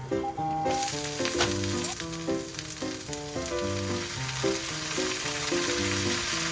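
Food sizzling as it fries in a pan, starting suddenly less than a second in and holding steady, with background music throughout.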